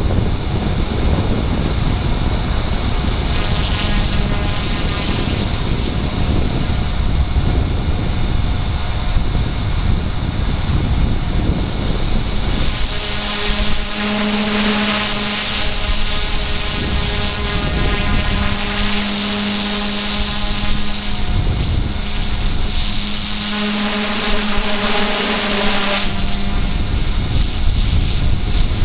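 E-flite Blade mCP X micro RC helicopter heard from its onboard camera: the upgraded brushless main motor gives a steady high whine over rotor buzz and rumbling wind on the microphone. From about 13 to 26 seconds the rumble eases and a steadier lower hum comes through.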